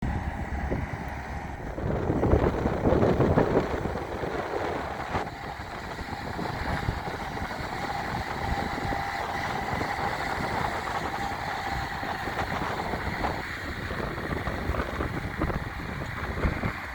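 Bobcat S185 skid steer loader's diesel engine running, growing louder for a couple of seconds near the start, with a faint steady whine through the middle.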